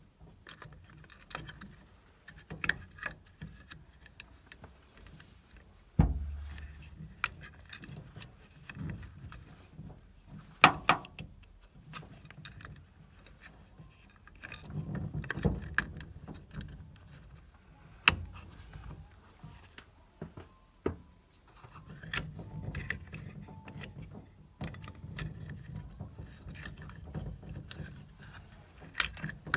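Irregular clicks, knocks and metal clinks of hands and tools working on a combi boiler's pump, with a heavy thump about six seconds in and a sharp knock about eleven seconds in.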